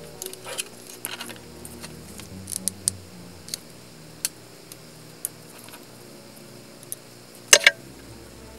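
Wooden popsicle sticks being handled, light clicks and taps as they knock together and against a wooden tabletop, with a sharp double clack near the end.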